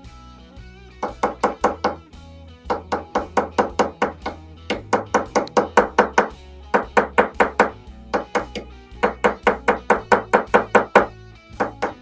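Small ball-peen hammer tapping quickly on a metal carabiner clamped in a steel vise. The strikes come in runs of about five or six a second with short pauses between, each with a light metallic ring. He is peening the carabiner's holding piece so it stops slipping out of its ring.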